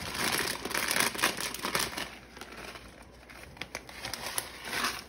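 A clear plastic bag crinkling and rustling as dry ramen noodles are shaken out of it into a pot. It is loudest in the first two seconds, then quieter with scattered crackles, and swells again near the end.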